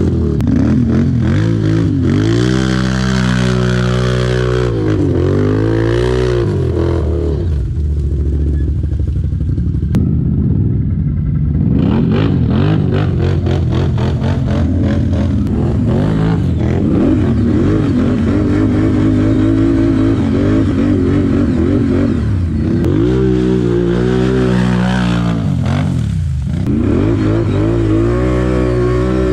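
ATV engine running under load, revving up and dropping back in repeated swells about two seconds in and again near the end, with a steadier run in between.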